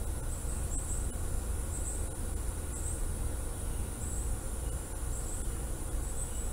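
Outdoor background noise: a steady low rumble, with faint, short high chirps now and then.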